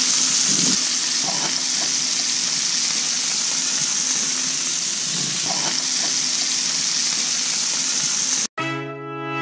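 Fish fillets and vegetables frying in hot oil in a cast-iron skillet and a wok: a steady sizzle. It cuts off sharply near the end, where music begins.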